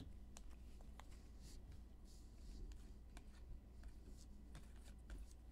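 Faint light clicks and slides of trading cards being flicked through by hand, one after another, over a low steady hum.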